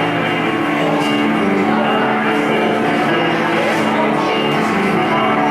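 Loud, steady music with guitar.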